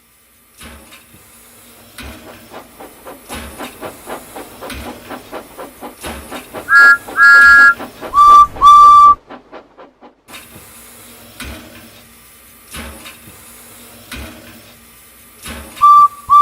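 Steam locomotive chuffing in a steady rhythm that quickens. About a third of the way in come two whistle blasts on a higher chord, then two lower single-note blasts. After a short pause the chuffing resumes more slowly, and another whistle blast comes near the end.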